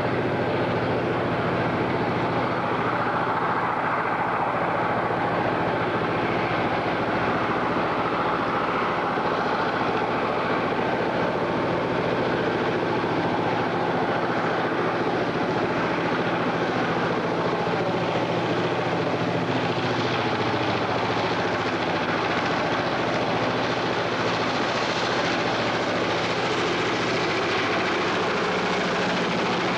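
Diesel locomotive hauling a freight train, its engine running with a steady low drone under the train's rumble as it approaches and passes.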